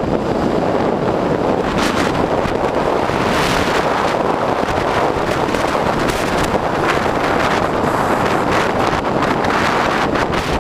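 Wind rushing over the microphone of an electric bike moving at speed: a loud, steady rush broken by several brief gusts. No motor whine stands out.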